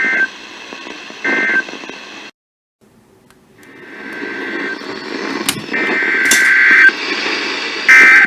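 Emergency Alert System SAME data bursts from a NOAA Weather Radio, harsh two-tone digital buzzes. First come two short end-of-message bursts about a second apart, then the signal drops out for half a second. Through rising static come three longer header bursts that open the next alert, with a couple of clicks between them.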